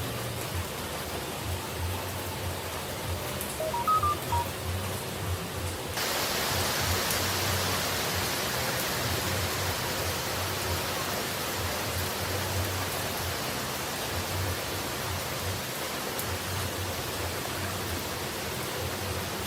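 Steady rushing noise of falling water with a low rumble underneath; about six seconds in it switches suddenly to a brighter, hissier rain sound. A few brief high beeps at different pitches sound about four seconds in.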